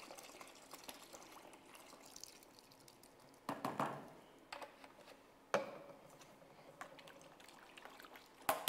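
Faint trickle of liquid primer poured from a squeeze bottle into water in a plastic bucket, diluting it 1:1. A few short handling knocks around the middle, and a splash near the end as a hand dips into the water.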